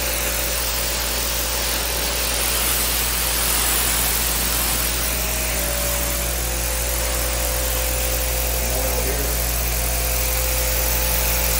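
Giraffe Tools Grandfalls 3300 PSI electric pressure washer running steadily at full pressure, its high-pressure jet hissing on a concrete floor as it strips off oil and dirt.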